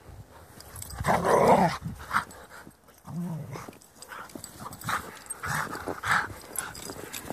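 Siberian huskies vocalizing as they play-wrestle: a loud drawn-out call about a second in, a lower shorter one near three seconds, then several brief calls later on.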